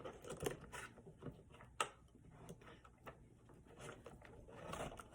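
Toy packaging being handled and pried at by hand: faint, irregular clicks, taps and crinkles of cardboard and plastic.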